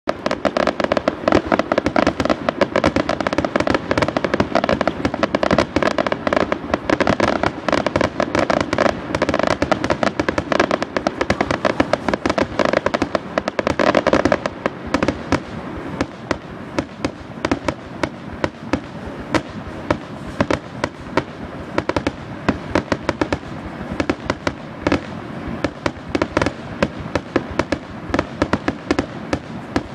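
Fireworks exploding in a dense, rapid barrage of bangs and crackles, thinning to more scattered bangs about halfway through.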